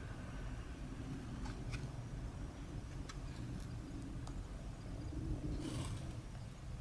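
Low steady room hum with a few faint, light clicks and a brief soft rustle about six seconds in.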